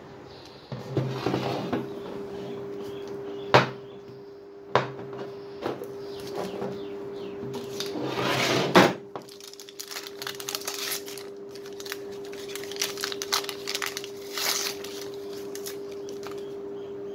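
Paper wrapping rustling and crumpling as it is peeled off a knife handle, with a few sharp knocks as the knife and clamp are handled. A steady hum runs underneath from about a second in.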